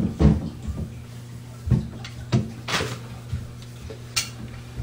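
A handful of sharp, separate knocks and clunks as channel-lock pliers work loose the slip nuts on a plastic sink drain trap.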